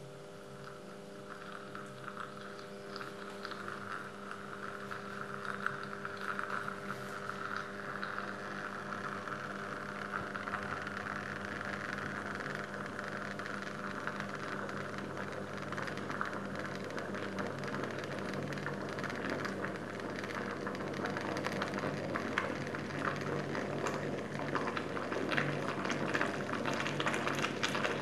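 Tap water in a glass jar heated by two steel spoons wired to 220-volt mains as electrodes, with a steady hum under a hiss that turns into a busy crackle of bubbles from about ten seconds in, growing louder as the water comes to the boil.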